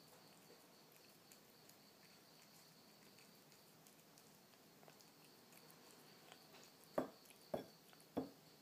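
Kitten eating canned cat food from a saucer: faint licking and chewing clicks, then three knocks about half a second apart near the end as the dish is pushed against the wooden floor.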